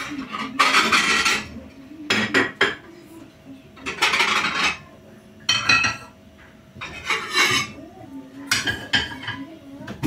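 Pans and metal kitchenware clattering and scraping on a gas stovetop and counter, in about six short bursts.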